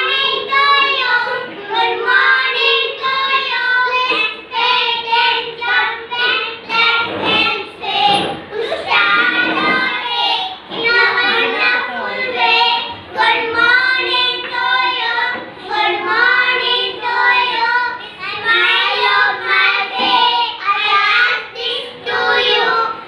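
A small group of young children singing a nursery rhyme together in unison, in a sing-song chant that runs on without pause.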